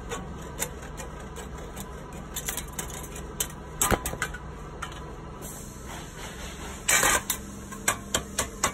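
Tin snips clicking as they cut galvanized steel flashing, and the thin sheet clattering as it is handled. About seven seconds in comes a short rasping burst, and near the end a run of quick, even taps begins.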